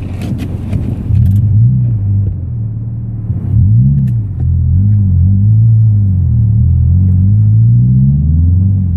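Subaru car engine running under varying throttle, its pitch rising and falling repeatedly as the revs swing up and down, with a few sharp clicks in the first second.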